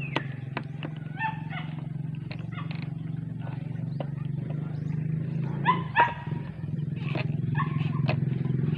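A steady low engine-like hum that grows louder near the end, with short animal calls over it, the loudest two about six seconds in, and a few small sharp clicks of a screwdriver fastening a wire to a motorcycle battery terminal.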